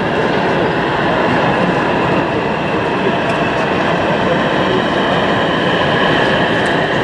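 Gauge 0 model diesel locomotive running steadily along the layout's track with its passenger coaches, the motor and wheels making a continuous rolling hum with a faint whine, and a couple of light clicks from the track.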